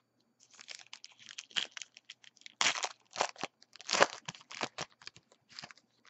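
Foil wrapper of a 2014 Panini Elite football card hobby pack crinkling and tearing as it is ripped open by hand: a run of irregular crackles, loudest about two and a half and four seconds in.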